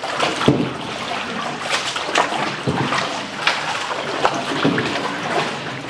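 Raw mutton pieces being churned and washed in a large metal pot of water with a long-handled wooden mallet: continuous sloshing and splashing broken by irregular knocks.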